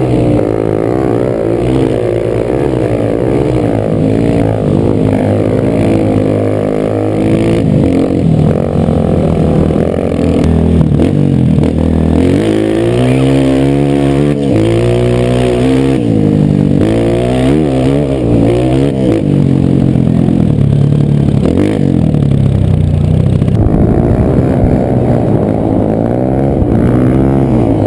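Single-cylinder four-stroke dirt bike engine heard close up from the bike while riding. Its pitch climbs and falls again and again as the throttle is opened and closed.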